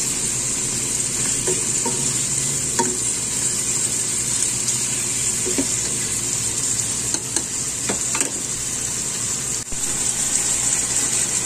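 Chicken pieces with garlic and onion sizzling steadily in hot oil in a pot as they are sautéed to brown lightly, stirred with a plastic spoon that scrapes the pot a few times.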